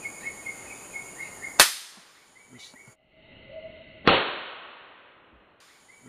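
Two air rifle shots about two and a half seconds apart, each a sharp crack with a trailing decay, the second fading out more slowly.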